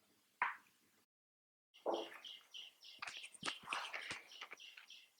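Birds calling: starting about two seconds in, a quick run of short, high chirps repeating about three times a second, with other calls mixed over them.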